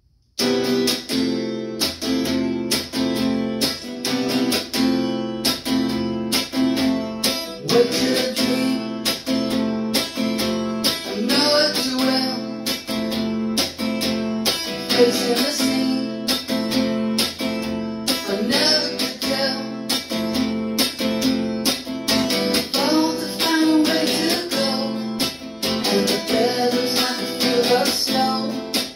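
Archtop hollow-body guitar strummed in a steady run of chords, starting abruptly about half a second in.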